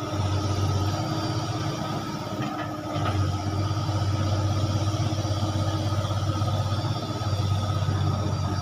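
Komatsu long-reach excavator's diesel engine running while it digs mud, with a steady high whine above it. The engine eases off briefly a couple of seconds in, then picks up again for the rest of the stroke.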